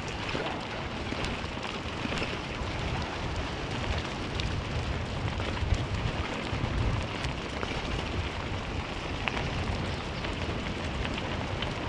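Wind rushing over the microphone and the tyres of a dog-pulled kick scooter rolling fast over a dirt forest trail, a steady rumbling hiss with scattered small ticks.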